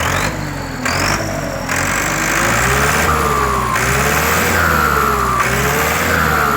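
Turbocharged engine revved up and down several times, its turbo whistling in high gliding tones that rise and fall with the revs, with bursts of turbo hiss that cut in and out.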